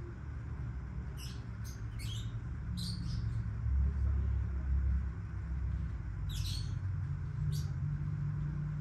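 Black-winged lovebirds (Agapornis taranta) giving about half a dozen short, sharp, high-pitched chirps, spaced irregularly, over a steady low rumble.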